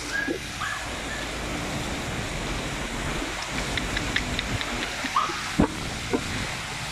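Strong storm wind and heavy rain making a steady rushing noise, with scattered short clicks and a sharp knock about five and a half seconds in.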